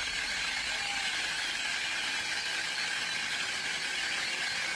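Steady high hiss from the film's sound design: the 'pulse' signal coming from an infected phoner's open mouth.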